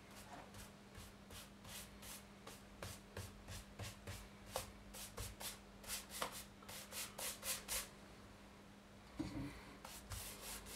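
Flat paintbrush swishing back and forth as it spreads oil over an oak cutting board, in faint, quick, repeated strokes about two to three a second. The strokes get quicker in the middle, stop for about a second near the end, then start again.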